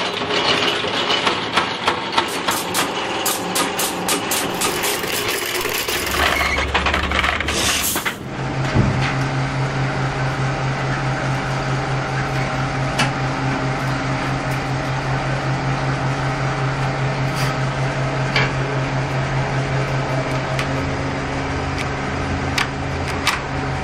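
Loose steel chain links clinking and clattering as they are handled, then a brief loud rush of noise about eight seconds in. After that, a steady low machine hum runs with occasional metallic clicks from the chain-making workshop machinery.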